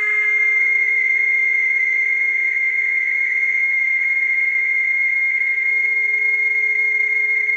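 Steady high-pitched machine whine of factory machinery: several constant tones over a light hiss, unchanging throughout.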